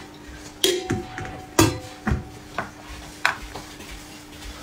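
Upturned stainless-steel bowls being handled on the table: about six sharp metal clanks over three seconds, one leaving a brief ring.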